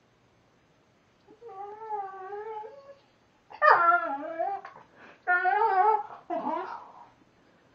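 Vizsla whining as it chews at its nails: four long, wavering whines starting about a second in, the middle two the loudest.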